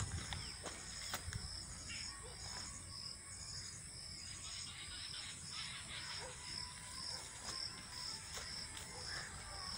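Insects chirping in a steady high pulse, about two pulses a second, over a low rumble, with a brief thump right at the start.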